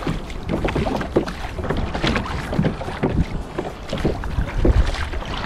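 Choppy sea water slapping and splashing irregularly against a kayak's hull, with wind rumbling on the microphone.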